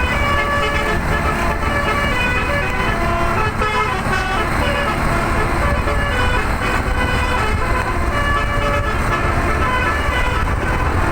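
Tour bus's telolet musical air horns playing a tune, a quick run of changing pitched notes, over the steady low rumble of the moving bus.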